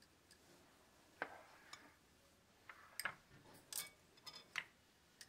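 Faint, irregular clinks and taps, about eight of them, as a steel spoon is lifted from a glass bowl of batter and small plastic bowls are handled on the counter.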